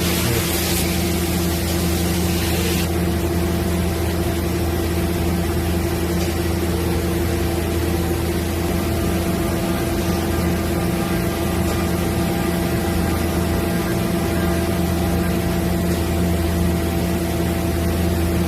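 Mazak Variaxis 630-5X II five-axis machining center running with a steady mechanical hum made of several constant tones. A burst of hiss lasts about two seconds, starting about a second in.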